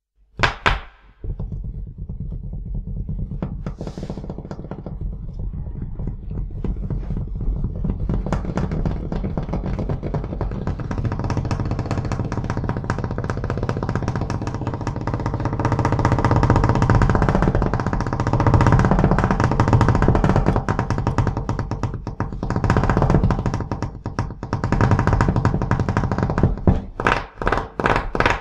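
Instrumental music that opens with a sharp hit, then plays densely and steadily and grows louder toward the middle, ending in a quick run of sharp strikes.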